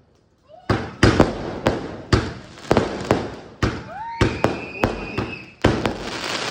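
Multi-shot aerial fireworks cake firing: after a brief pause, a rapid series of sharp bangs, about two to three a second, as shells burst overhead, with crackling between them that thickens near the end.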